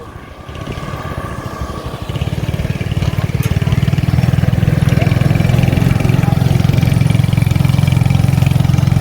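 Motorbike engine running close by, growing louder over the first two to three seconds, then holding a steady pulsing drone while riding along.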